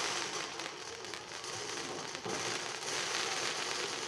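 Fireworks battery shooting red comets: a dense, continuous crackling hiss full of small rapid pops.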